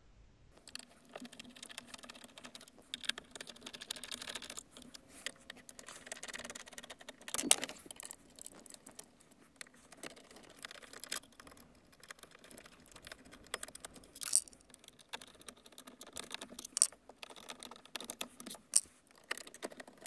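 Screwdriver turning out the four screws that hold a Ford 6000CD radio in the dashboard: scattered small clicks, scrapes and light metal rattles, with a few sharper knocks.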